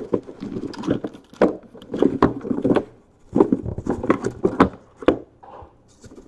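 Cardboard boxes being handled: a shipping case slid apart and small Topps Tier One hobby boxes knocked and scraped against each other as they are lifted out and stacked, giving a run of light knocks and short cardboard scrapes.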